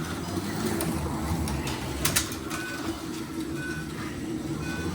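Slot cars running on a Carrera digital track: a steady whirr of small electric motors and the rumble of the cars on the plastic track, with a few sharp clicks. Three short high chirps come in the second half.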